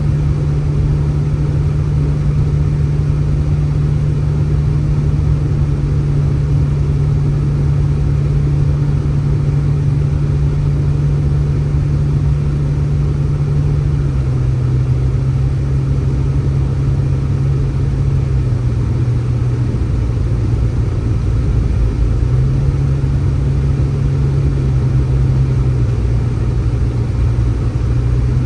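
A steady low engine hum over a rumble. Its pitch drops slightly about halfway through, rises again later, and drops once more near the end.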